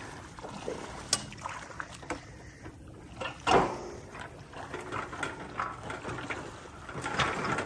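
Shallow lake water sloshing and splashing around a wading man's legs as he pries a metal boat lift out of the muck with a steel pipe. There is a sharp knock about a second in and a louder thump with a splash about three and a half seconds in.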